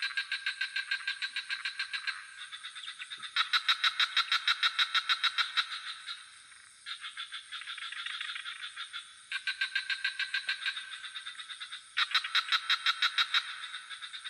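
Frogs calling in fast pulsed trills, about eight pulses a second, in bouts of two to three seconds that overlap and trade off. A steady high-pitched insect drone runs beneath them.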